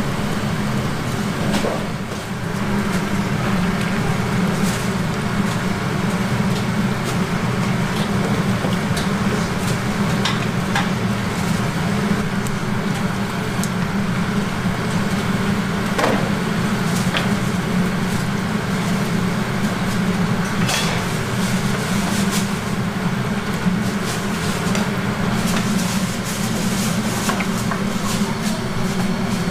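Battered chicken deep-frying in a large wok of oil: a steady sizzle over a low steady hum, with a few sharp clinks of metal tongs and utensils.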